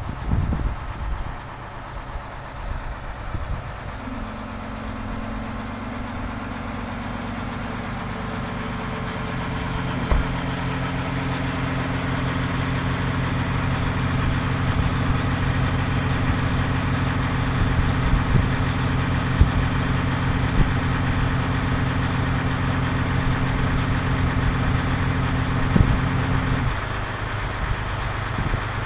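A vehicle's engine idling. It starts as an uneven low rumble, then about four seconds in settles into a steady low hum that holds until it eases off near the end. A few sharp clicks come over it.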